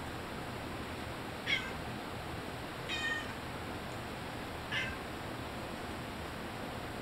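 Calico cat meowing three times, short calls about a second and a half apart, the middle one a little longer.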